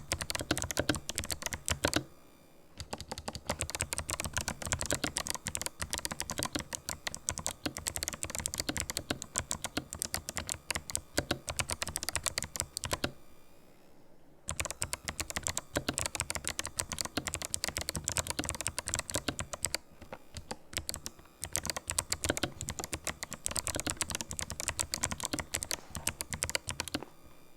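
Fast, continuous typing on a Ninja 87 Pro mechanical keyboard fitted with fully lubricated Kailh White clicky switches: dense runs of keystroke clicks, broken by short pauses about two seconds in, around the middle, and about two-thirds of the way through.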